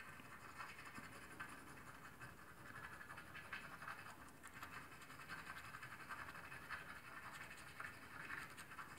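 Scratch-off lottery ticket's coating being scratched away in quick, repeated rasping strokes, faint, with a few slightly louder spells.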